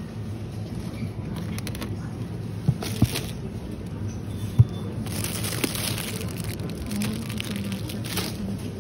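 Supermarket shopping cart rolling with a low rumble and a few sharp knocks, then plastic packaging crinkling for a second or two about halfway through and again near the end as a bag of enoki mushrooms is handled and put into the basket.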